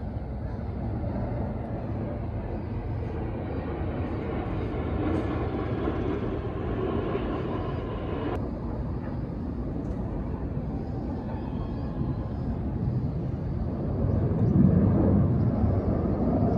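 Jet engine noise from Blue Impulse Kawasaki T-4 jet trainers passing overhead in formation. It is a steady rumble with a faint whine that cuts off suddenly about eight seconds in, and it grows louder near the end.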